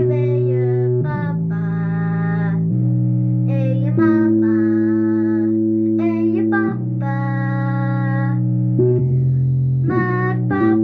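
Korg microKORG synthesizer playing long held low notes that change every second or two, with a brighter, higher-pitched part coming in and dropping out above them.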